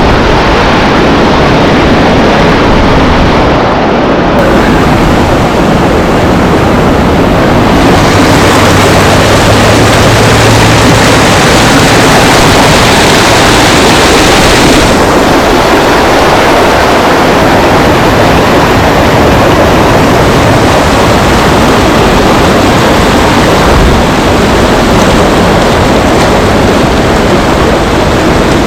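Waterfall rushing, a loud steady roar of falling water close to the microphone, which turns brighter for a stretch about eight seconds in.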